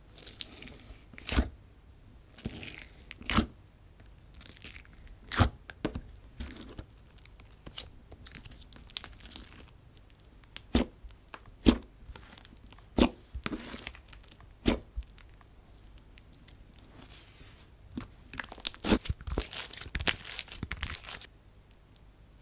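Thick DIY clay slime being pressed, folded and squeezed by fingers, giving off irregular sharp pops and clicks from trapped air, with a quick run of them near the end.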